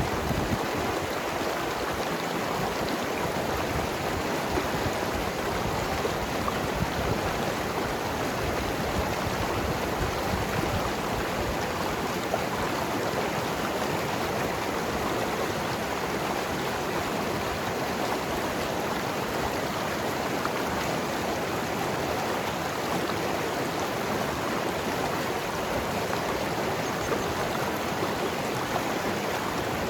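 Mountain river rushing and gurgling over rocks, a steady dense flow of water.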